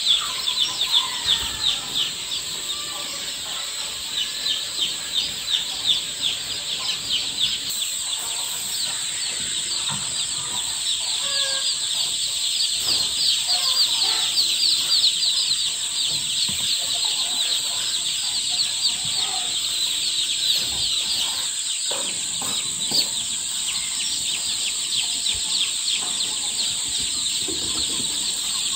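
A brood of newly hatched chicks peeping nonstop: many short, high peeps overlap into a dense, continuous chorus.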